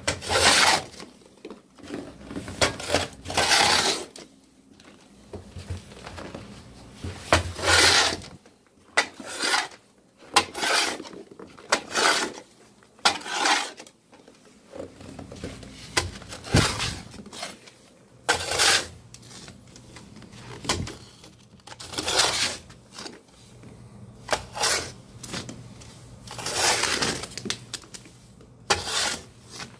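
Snow shovel scraping and pushing snow across the boards of a wooden balcony deck, in irregular strokes every second or two.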